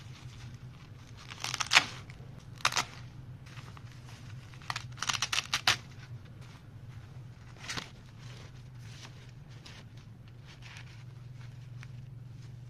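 Packaging of a new fishing rod being torn and crinkled open: a few short ripping bursts, the loudest about two seconds in, and a quick run of them around five seconds in, over a low steady hum.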